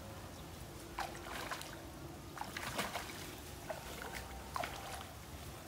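Water splashing and dripping as a cast net is hauled in by its rope through pond water: a string of short, sharp splashes and plinks between about one and five seconds in.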